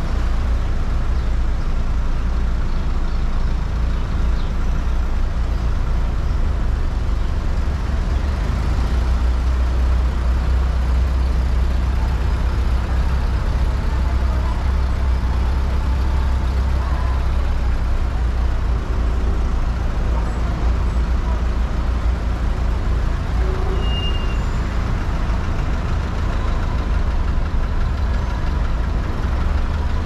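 Steady low rumble of engines and tyres in slow-moving city street traffic, close to the vehicles.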